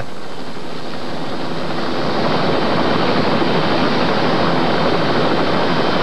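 Army rescue helicopter hovering, its rotor and turbine engine making a steady, loud whir.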